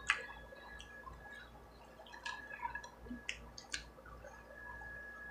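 Quiet, wet mouth sounds of eating fried chicken: scattered lip smacks and short clicks from chewing and finger-licking.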